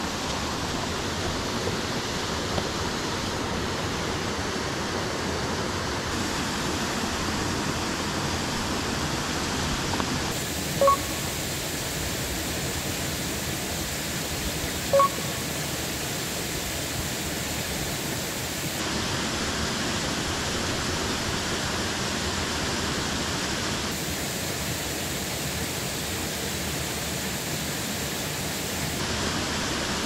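Steady rush of water spilling over a small concrete weir into a creek pool. The rush changes character abruptly a few times. Twice, about four seconds apart, a short clear note cuts in above it.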